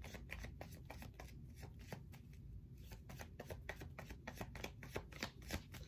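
A deck of tarot cards being shuffled by hand: a continuous run of faint, irregular card flicks and slaps.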